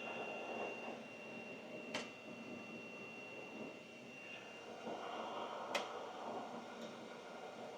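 Steady rushing blower noise with a thin high whine, as from a bench blower running during micro-soldering, broken by two sharp clicks about four seconds apart, one about two seconds in and one near six seconds.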